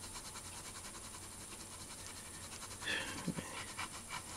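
Pen tip scratching back and forth on paper as dense shading is built up, a faint, fast, even rasp of many strokes a second, a little louder about three seconds in.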